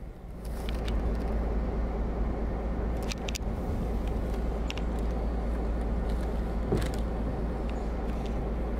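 Diesel locomotive idling with a steady low rumble, with a few light clicks scattered through it.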